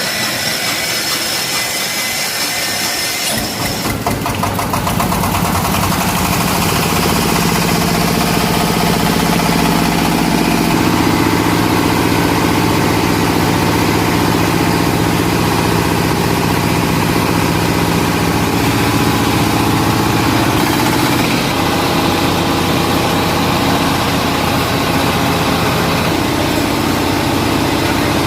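Rice huller (paddy husking machine) running steadily, hulling paddy into rice: a loud, even engine-driven machine hum. For the first few seconds only a steady high whine is heard, then a lower, heavier engine sound comes in about four seconds in and holds.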